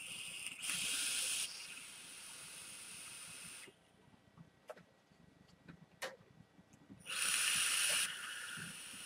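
Box-mod vape with a 0.4-ohm single-coil atomiser being fired and drawn on: a steady hiss and sizzle that stops after about three and a half seconds. A second long draw starts about seven seconds in, loudest for its first second.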